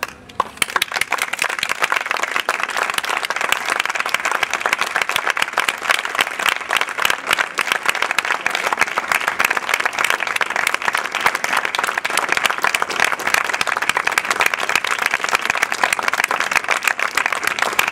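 Audience applauding: many hands clapping together, breaking out sharply about half a second in and holding steady.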